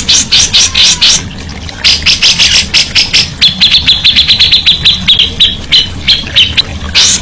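Songbird singing loudly: a quick run of sharp high chips, a brief pause about a second in, then a long rapid series of notes at a steady high pitch that slows near the end.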